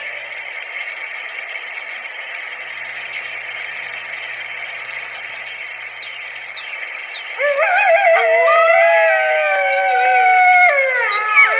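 Red wolf howling: after several seconds of steady hiss, a long wavering howl begins about seven seconds in, holds, then slides down in pitch, and a fresh howl starts rising near the end.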